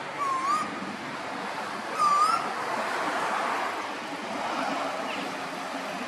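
Male Pacific koel (storm bird) calling: two short whistled notes, one just after the start and a louder one about two seconds in, over a steady background hiss.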